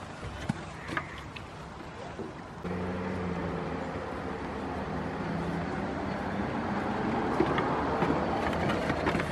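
Goat kids sparring on a wooden bench: scattered knocks and clicks of hooves and heads on the planks. About three seconds in, a steady machine drone with a low hum comes in and stays.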